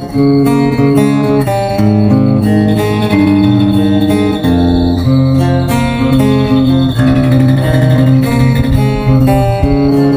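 Yamaha Jumbo 310 Custom acoustic guitar played with the fingers: chords picked over the soundhole, the notes ringing on and changing every second or so in a steady flow.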